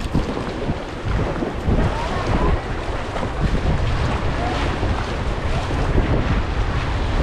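Creek water rushing and splashing around a whitewater kayak, with paddle strokes splashing and wind rumbling on the camera's microphone.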